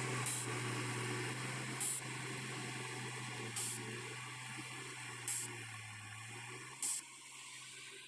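Caterpillar 140G motor grader's diesel engine running steadily as the grader pulls away, its sound fading gradually. Short hiss-like bursts recur about every second and a half.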